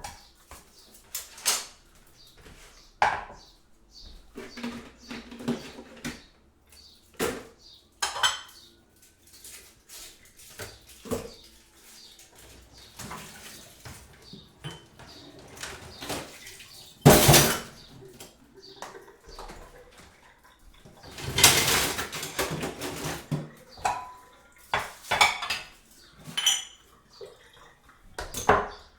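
Kitchen crockery and cutlery being handled: scattered clinks and knocks, with one loudest knock about 17 seconds in and a stretch of about two seconds of continuous clattering noise around 21 seconds in.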